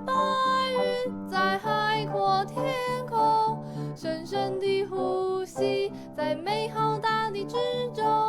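Music: a gentle pop-style song passage with a melody line over steady accompaniment.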